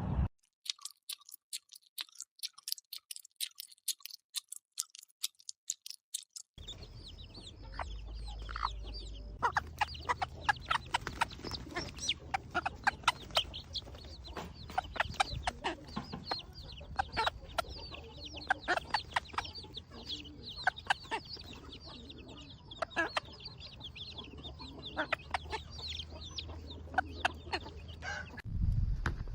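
Chickens clucking, many short calls in quick succession. For the first six seconds only a few short clicks are heard; from then on, over a low steady background, they keep up a dense run of clucks to the end.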